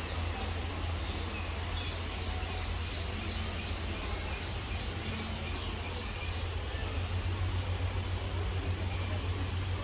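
Steady low rumble of distant traffic, with a small bird calling in a quick run of short, high chirps, about three a second, from about a second in until about five seconds in.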